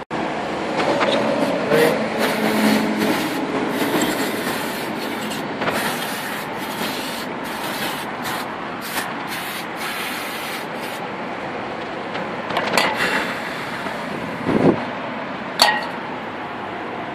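Aerosol brake cleaner sprayed onto a car's rear disc brake caliper bracket in a rapid series of short hissing bursts for about ten seconds, starting about a second in. A few sharp knocks follow near the end.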